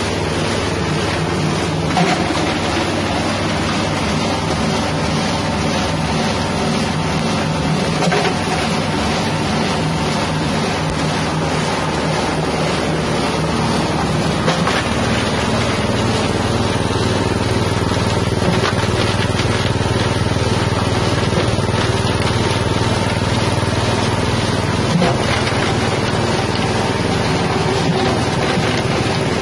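Grinding machine driven by a 6.5 hp petrol engine, running steadily at constant speed while it grinds material through its screen. The engine drone and grinding noise hold even, with a few sharp knocks scattered through.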